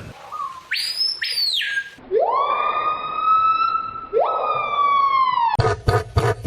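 A bird giving a run of strange siren-like calls. It starts with short high whistles, then gives two long wails that each rise quickly and slowly fall, then a fast pulsing call repeated about three times a second near the end.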